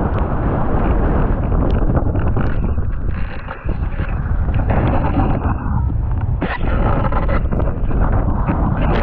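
Strong wind buffeting the microphone of a boom-mounted action camera on a planing windsurf board, with spray and chop rushing under the board as it carves through a gybe. The noise dips briefly about three and a half seconds in.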